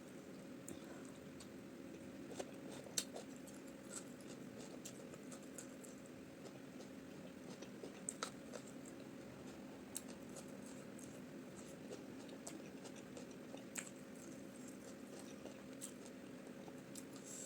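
Quiet eating sounds: faint scattered mouth clicks and smacks as rice balls and spicy peanut soup are eaten, over a steady low hum.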